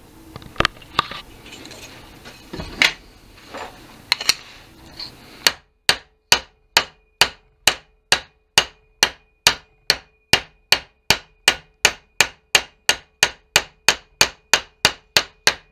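Hammer striking a thin aluminium door-threshold strip to flatten it: a few scattered knocks, then from about five seconds in a steady run of blows, about three a second.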